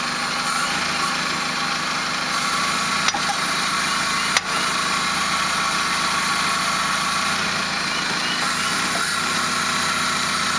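1998 Toyota Camry engine running steadily at idle, with two sharp clunks about three and four and a half seconds in, the second louder: the weird clunking noise the car has developed.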